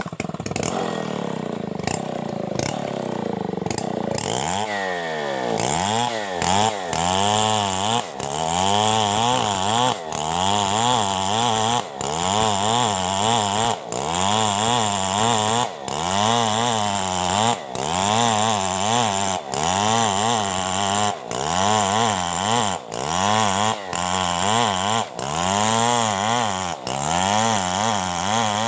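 Two-stroke chainsaw ripping a coconut trunk lengthwise. It runs at a steady speed for a few seconds, then its pitch dips and rises about once a second as the bar is worked through the cut.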